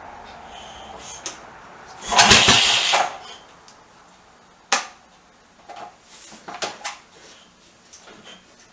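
One kick on the kickstart of a BSA B44's single-cylinder engine about two seconds in: a loud mechanical clatter lasting about a second as the engine turns over without firing. A few light metallic clicks follow.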